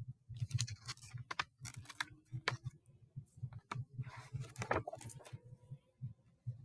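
Pages of a large picture book being turned and handled close to the microphone: scattered paper rustles and clicks, busiest about four to five seconds in.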